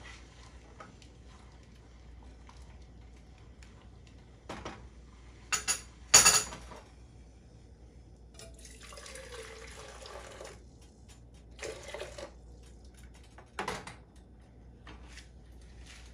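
Kitchen clatter: a wooden spoon and metal utensils knocking against a saucepan and being set down on a small dish. There are a few sharp clinks, the loudest about six seconds in, and a couple of seconds of splashing water midway.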